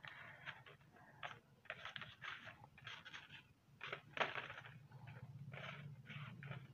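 Faint, irregular rustles and light scrapes of hands handling and placing embroidered appliqué patches and jewelled buttons on a paper card. The loudest rustle comes about four seconds in.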